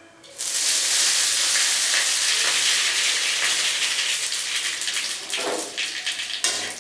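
Spices dropped into hot oil in a karai, sizzling. A loud hiss starts suddenly about half a second in and slowly eases over the following seconds.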